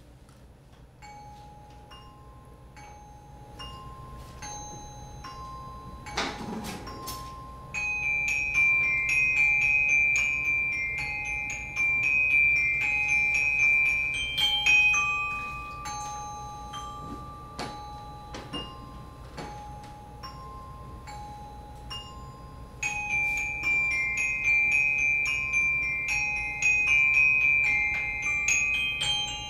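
Glockenspiel played with two mallets: a slow, alternating two-note figure of ringing metal-bar tones. From about eight seconds in, a quicker and louder run of repeated high notes plays over it. A single sharp knock sounds about six seconds in.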